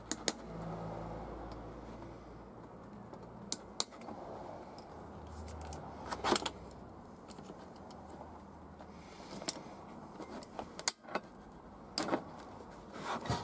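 Scattered light metallic clicks and clinks of hand tools, locking pliers and a Torx bit, working the cover screws of a diesel vacuum pump. The strongest clink comes about six seconds in, with a cluster of clicks near the end.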